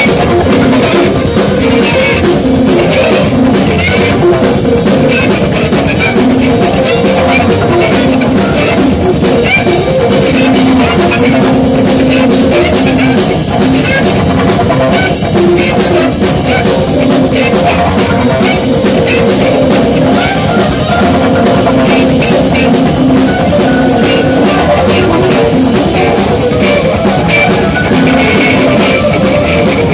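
Instrumental jazz-rock band playing live and loud: a busy drum kit with constant cymbal work under sustained electric guitar and bass.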